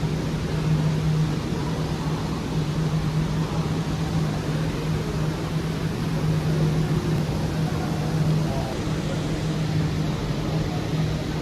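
Steady machine hum with an even rushing noise over it, unchanging throughout.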